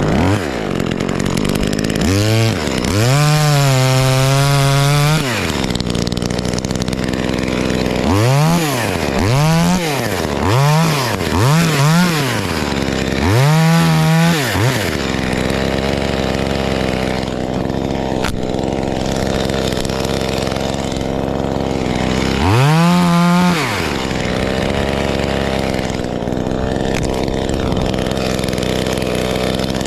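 Two-stroke chainsaw idling and revved up again and again in short bursts: a run of quick rises and falls in pitch, the longest held for about two seconds near the start, then a quieter stretch of idling with one more rev about two-thirds of the way through.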